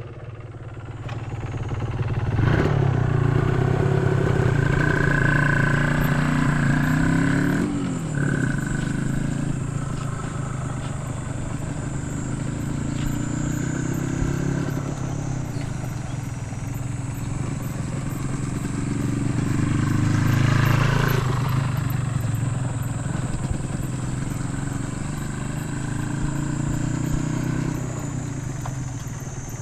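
Suzuki RGV250Γ (VJ22A) two-stroke V-twin motorcycle being ridden. The engine revs build about two seconds in, ease off near eight seconds and rise again around twenty seconds. It runs without abnormal noises, as the seller describes it.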